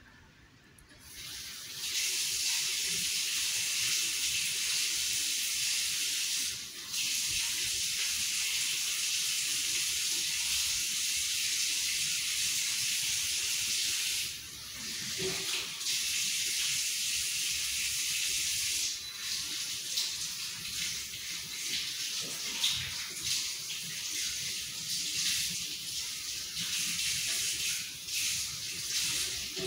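Steady rain falling on an orchard's leaves and grass, a dense even hiss that swells in over the first two seconds. In the last third it turns more uneven, with single drops pattering.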